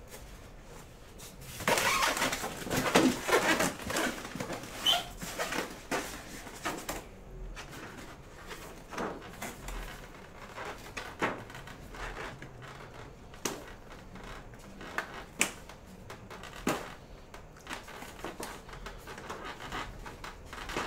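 Monitor packaging being handled in a cardboard box: a stretch of rustling and scraping a couple of seconds in, then scattered light knocks and clicks.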